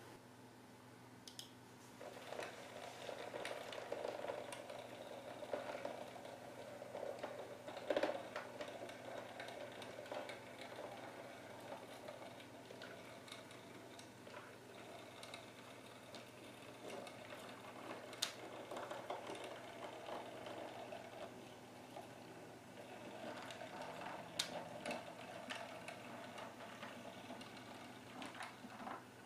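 OO gauge model diesel shunter and a train of tank wagons running slowly along the track: a faint, steady motor whir and wheel rumble with a few sharp clicks from the wheels on the rails and points.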